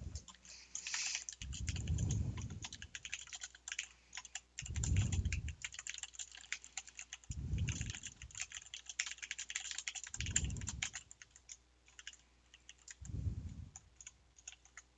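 Stylus tapping and scratching on a tablet screen in rapid, irregular light clicks, as answers are handwritten. Soft low thumps come about every three seconds.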